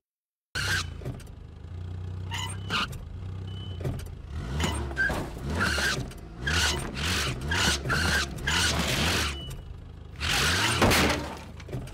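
Car engine revving as the car spins tight donuts towing a boat trailer, with repeated tyre screeches about every half second to a second. It begins about half a second in.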